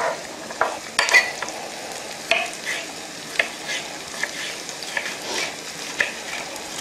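Onion frying in oil in a pan, a steady sizzle, with a knife slicing red bell pepper into strips and tapping irregularly on the cutting board.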